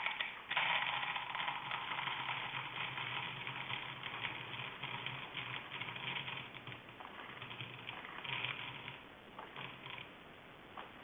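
BTMS conditioning-emulsifier pellets rattling as they are scooped and handled: a dense run of small clicks over a low hum, fading near the end.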